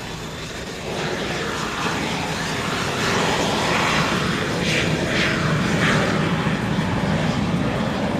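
Blue Angels F/A-18 Hornet's twin turbofan jet engines running on the runway, a loud steady roar that grows louder about a second in and again about three seconds in.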